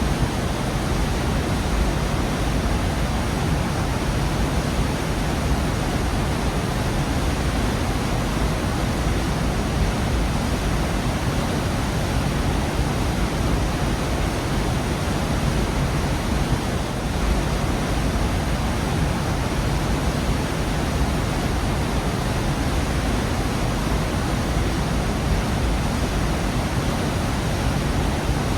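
Waterfall pouring steadily into a rocky gorge, a dense unbroken rush of falling water heaviest in the low end.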